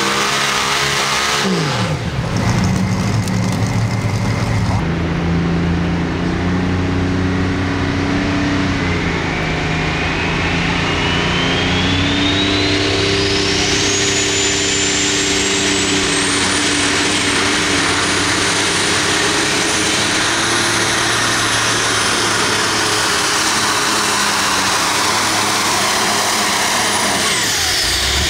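A modified pulling tractor's engine winds down in the first two seconds. Then a diesel John Deere pulling tractor runs under full load, its turbo whine climbing to a high pitch over several seconds, holding, and falling away near the end.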